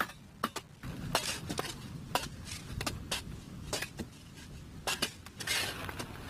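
Shovels and long-handled digging tools striking and scraping into hard earth and stones. There are sharp, irregular metallic clinks about every half second, with a longer scrape near the end.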